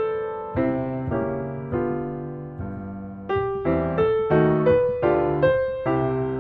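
Background piano music: gentle notes and chords struck one after another, each dying away, a bit busier in the second half.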